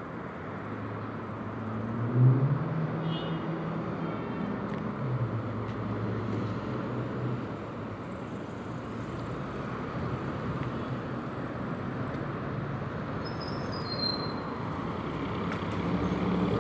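Road traffic noise: a steady hum of cars on the street, with a passing vehicle's engine note most prominent about two seconds in.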